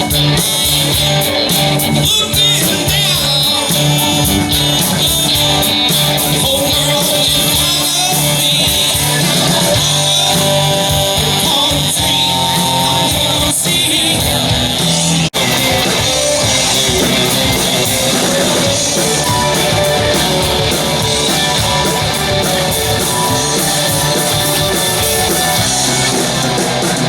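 Loud rock music with singing and guitar, with a momentary break about fifteen seconds in.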